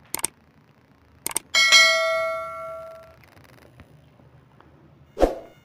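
Subscribe-button animation sound effects: a quick double mouse click, another double click a little over a second later, then a bright notification-bell ding that rings out and fades over about a second and a half. A short thump comes near the end.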